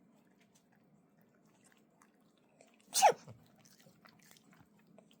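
A person's fake sneeze, a single loud "choo!" about three seconds in, short and dropping in pitch. Otherwise only faint room noise with small ticks.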